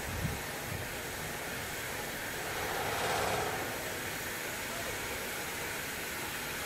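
LEW-built EL2 electric locomotive rolling slowly on the track, a steady running rumble that swells about three seconds in.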